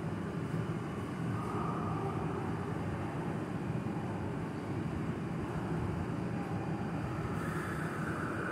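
Steady low hum of an Odakyu 70000 series Romancecar GSE electric train standing at a platform before departure, its onboard equipment running, with a faint whine rising near the end and a brief high hiss about seven and a half seconds in.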